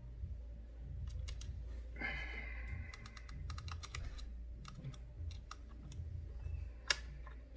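Small screwdriver working screws into a laptop's metal drive bracket: scattered light clicks and ticks of metal on metal, a brief scrape about two seconds in, and a sharper click near the end.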